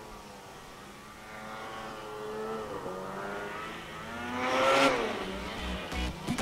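Snowmobile engine revving, rising in pitch and getting louder as the sled comes through deep powder, then dropping in pitch just before five seconds in. Electronic music with a heavy bass beat comes in near the end.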